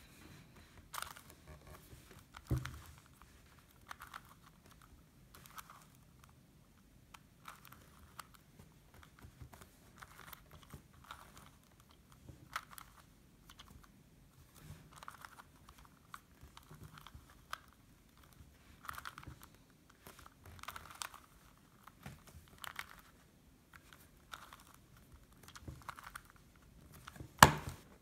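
Plastic Rubik's Cube layers turned by hand, each turn a short clicking rasp, in a steady run of about one turn a second as a corner-swapping algorithm is worked through. A single sharp knock comes near the end.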